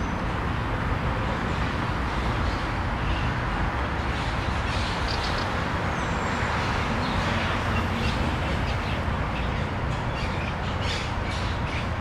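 City park ambience: a steady hum of nearby urban traffic, with small birds chirping now and then over it.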